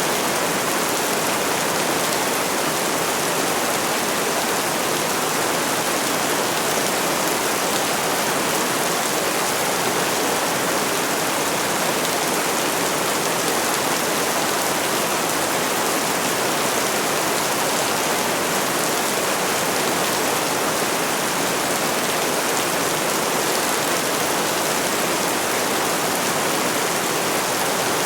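Steady rain falling, a dense even hiss with no single drops or thunder standing out.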